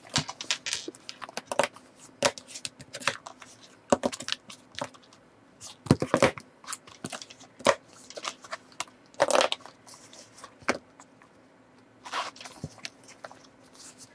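Rustling and clicking of handling as small items are taken out of a quilted leather handbag and set down on a desk: many scattered light clicks and short rustles, with a few louder taps and scrapes.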